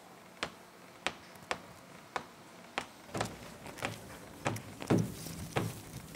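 Soundtrack of a demo film played over a hall's sound system: sharp clicks like finger snaps, evenly spaced a little under two a second, joined about halfway by low thuds in the same beat.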